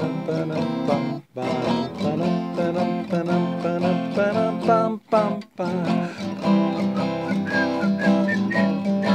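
Steel-string acoustic guitar strummed in an instrumental break, with the strumming stopping dead for a moment about a second in and twice around the middle.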